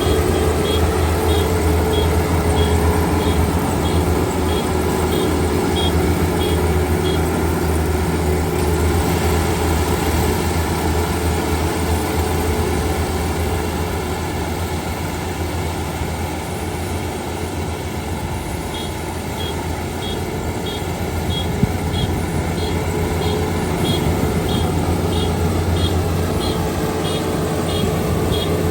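Kubota ER572 combine harvester's diesel engine and threshing machinery running steadily under load. A rapid, high-pitched beeping repeats through the first third and again through the last third.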